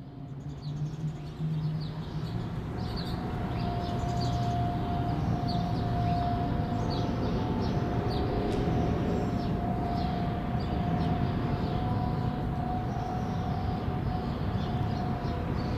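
Outdoor warning siren sounding one steady tone, growing louder over the first few seconds, over a low traffic rumble, with birds chirping.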